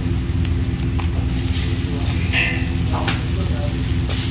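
Onions and chillies sizzling in oil in a kadai, with a metal spatula scraping the pan a few times. Near the end a louder rush of stirring begins as crumbled idli goes into the pan. A steady low hum runs underneath.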